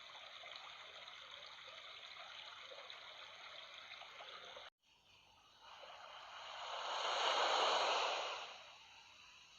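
Running water trickling and babbling steadily, then after a short break a single rush of water swells up loud and fades away, like a sea wave washing in.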